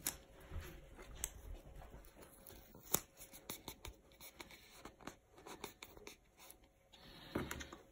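Faint ticks and rustles of a small clear plastic deli cup of coco-fibre substrate being held and turned in the hands, with one sharper click about three seconds in.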